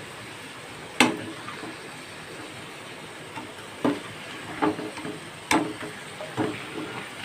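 Battered bitter gourd slices frying in hot oil with a steady sizzle, while a utensil knocks sharply against the frying pan about five times as the fried pieces are scooped out.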